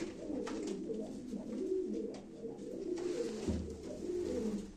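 Domestic Turkish tumbler pigeons (oyun kuşu) cooing: a low rolling coo repeated over and over, in a small concrete loft.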